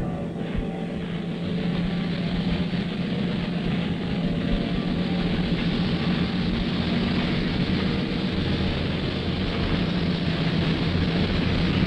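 A train running by: a steady engine drone with a low hum and rumble, slowly growing louder.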